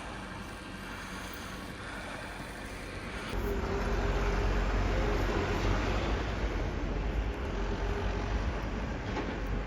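Steady outdoor traffic noise with a faint steady hum. It changes abruptly and grows louder about three seconds in.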